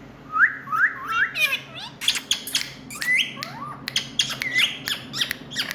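Indian ringneck parakeet squawking: a quick series of short, sharp calls, each rising in pitch, several a second, with sharp clicks mixed in.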